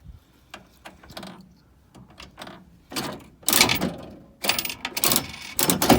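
Vending machine's vend mechanism running to dispense an item: a few light clicks, then louder mechanical rattling and clunking from about three seconds in.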